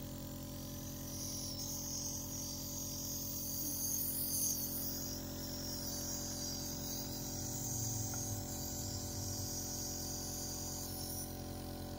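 Nebulizer compressor running steadily: a low hum with a hiss of air and mist over it.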